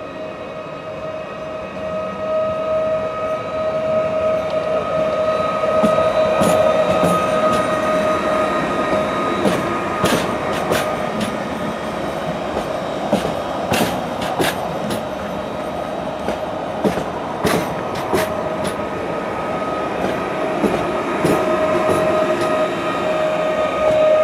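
PESA Elf EN76 electric multiple unit rolling slowly past with a steady whine from its electric drive. Sharp irregular clicks from the wheels crossing rail joints and points come mostly in the middle stretch.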